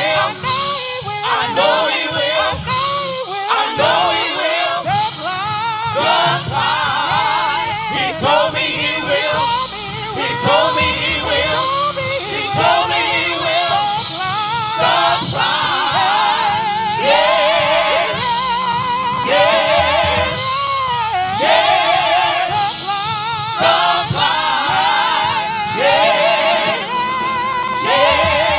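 Gospel praise team of men and women singing together into microphones, the voices held with wavering vibrato over steady backing music.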